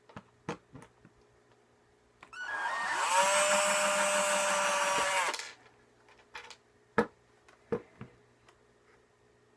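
Handheld power drill's motor spinning up and running steadily for about three seconds, then stopping. A few light clicks and knocks come before and after it.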